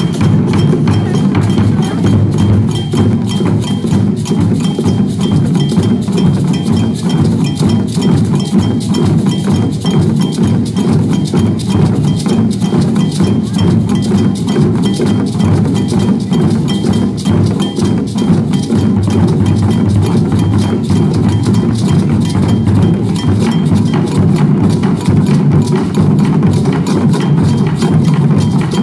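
An ensemble of djembe drums struck with drumsticks, playing together in a dense, steady rhythm.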